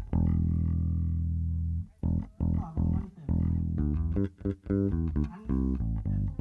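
Electric bass guitar played on its own for a sound check: one long low note held for about two seconds, then a run of short plucked notes.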